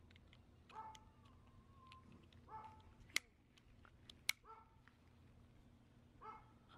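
Faint dog barks, four single barks about two seconds apart. Two sharp clicks come in the middle, as the saddle's plastic strap buckles are worked.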